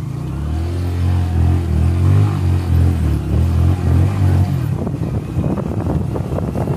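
Small motorcycle engine revving hard in pulses as it rides along a loose sandy track, its note wavering up and down. About two-thirds of the way through the engine note eases off and a run of knocks and rattles from the bike jolting over the rough ground takes over.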